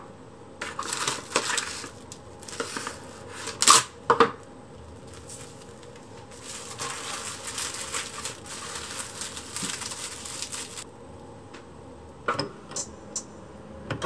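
Plastic cling film crinkling and rustling as it is handled and wrapped tightly around a roll of sliced eggplant, with a couple of sharp louder crackles in the first few seconds. A few short clicks follow near the end.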